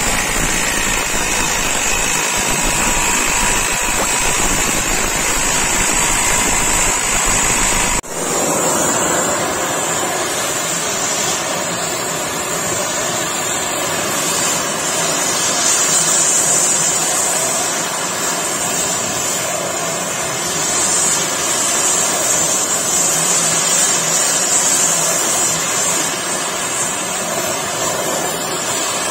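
Oxy-acetylene torch burning with a loud, steady hiss, heating a tapered roller bearing so that it expands and slips off its shaft. The sound breaks off suddenly about eight seconds in and then carries on just as steadily.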